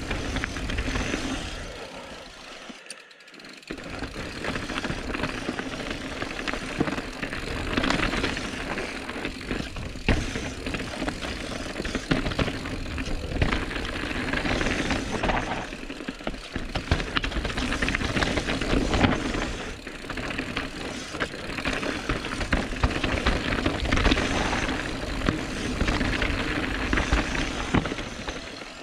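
Calibre Sentry full-suspension mountain bike descending a dirt downhill track at speed: tyres running over the ground with a steady rush, and the bike rattling and knocking over roots and bumps. There is a brief lull about three seconds in.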